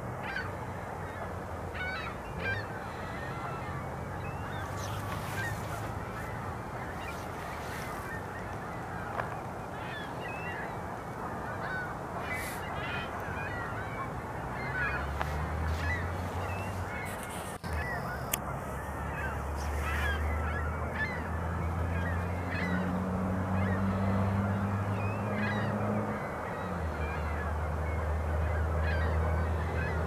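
A flock of geese honking and calling continuously, many overlapping calls at once. A low droning hum comes in about halfway through.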